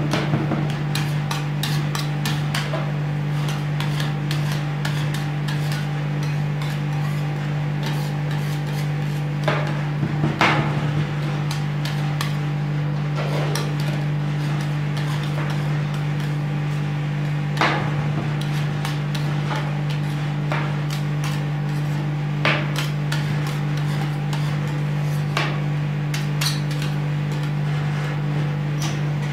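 Steel spatulas chopping and scraping ice cream base on the steel plate of a rolled-ice-cream cold plate, a busy run of sharp metal taps and scrapes with a few louder knocks. Under it runs a steady low hum.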